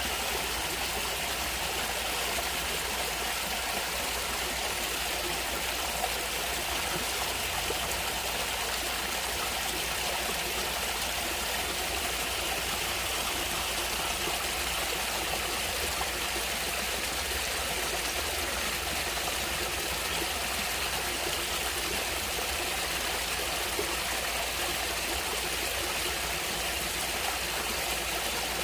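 Flowing stream water running and trickling steadily, with no pauses or changes.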